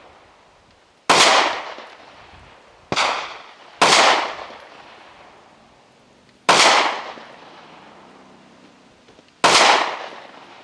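Anderson Manufacturing Kiger 9C 9mm striker-fired pistol fired five times at a slow, uneven pace, each shot trailing off over about a second. The second and third shots come less than a second apart.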